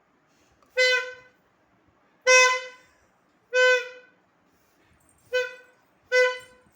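A one-year-old blowing a toy wind instrument in short toots: five separate notes on one steady pitch, each about half a second long, spaced roughly one to one and a half seconds apart.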